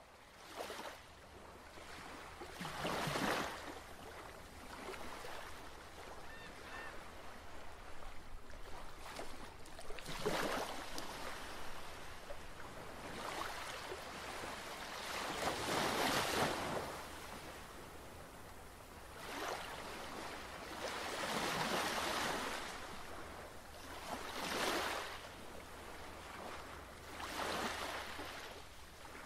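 Ocean surf washing in and out, swelling in a surge every few seconds and fading between them.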